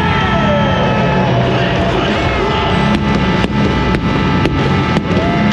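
Loud, steady stadium din from a packed arena crowd with music over the PA, a falling tone early on, and a run of sharp hits about twice a second in the second half.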